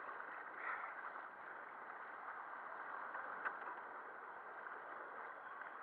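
Small surf washing and splashing around a sit-on-top kayak: a steady hiss of moving water, with one short click about three and a half seconds in.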